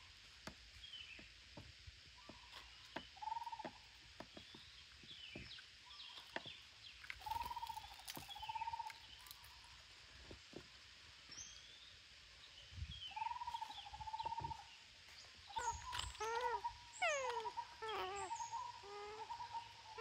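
Parakeets calling: short arched whistled notes every few seconds and high chirps, becoming busier with quick falling notes over the last few seconds. Light clicks sound throughout.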